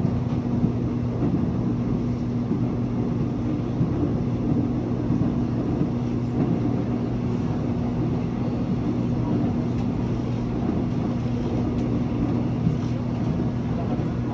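Seoul Subway Line 1 express electric train running at steady speed: a continuous rumble of wheels on track with a constant low hum.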